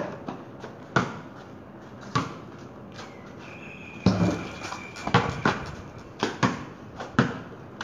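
Basketball bouncing on concrete in separate thuds as it is dribbled, with a heavier knock about four seconds in as the ball strikes the backboard, then a quicker run of bounces.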